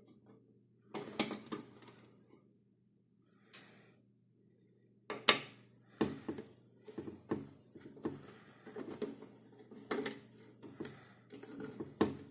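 Irregular metallic clicks and clinks of a screwdriver and screws against the metal case of a tube signal generator as its screws are taken out. The loudest knock comes about five seconds in, and the clicks come thicker through the second half.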